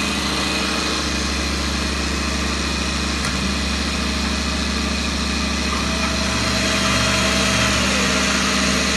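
Sicar 3200 B sliding-table panel saw running with no wood being cut: its electric motor, belt drive and blade spin with an even, steady hum.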